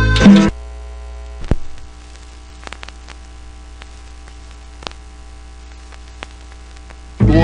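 Music from a 45 rpm vinyl record cuts off half a second in, and about a second later a thump as the turntable's stylus is set down on the record. Then only a steady turntable hum with a few faint crackles and pops from the record surface, until the music comes back in near the end.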